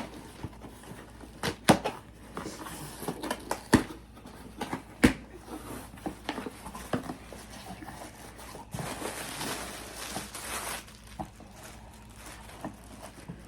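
Packaging being handled: sharp knocks and taps of a parcel being set down and turned over, with tearing and crinkling as labels and packaging are pulled off, the longest tear lasting about two seconds past the middle.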